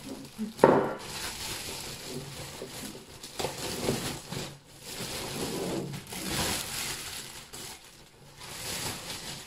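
Thin clear plastic packaging crinkling and rustling in irregular bursts as a gold-coloured wire wall shelf is handled and pulled out of its bag.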